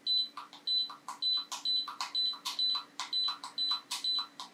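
Control button on an iRepair MS1 desoldering heating platform pressed over and over, each press a click and a short high beep, about two to three a second. Each press raises the set temperature by 10 degrees.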